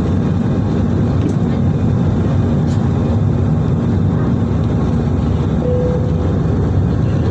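Jet airliner's engines at takeoff power during the takeoff roll, heard inside the cabin as a loud, steady, low rumble.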